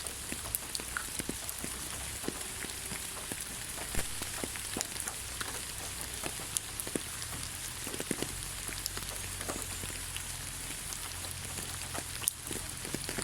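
Rain falling on the ground: a steady hiss dotted with many separate drop ticks, a few of them louder.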